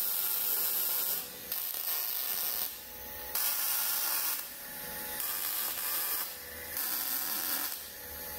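MIG welder laying short welds on steel cross braces: about five bursts of crackling arc hiss, each about a second long, with short pauses between.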